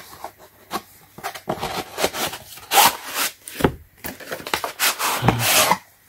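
Hard plastic torque wrench case and cardboard boxes being handled: the case rubbing and sliding in its cardboard sleeve, with irregular scrapes and knocks as the boxes are moved about.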